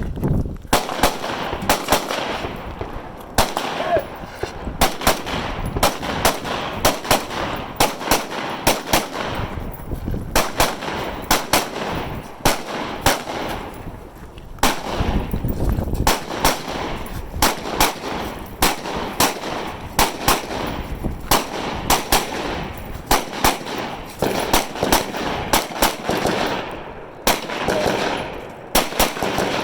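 Rifles firing on a match firing line: a long run of irregular, overlapping shots, several a second, each trailed by echo.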